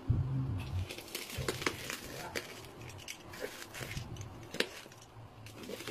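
Scattered, irregular light clicks and taps of small objects being handled, over a low hum.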